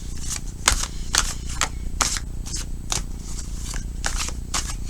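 A deck of tarot cards being shuffled by hand: a quick, irregular run of crisp card slaps and flicks, over a steady low background hum.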